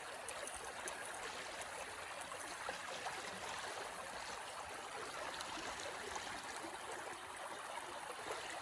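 Stream water running with a steady, faint rushing.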